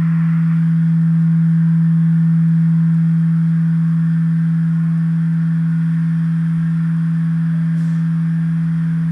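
Live electronics sounding a steady low drone: one unchanging tone with fainter tones above it and a soft hiss higher up.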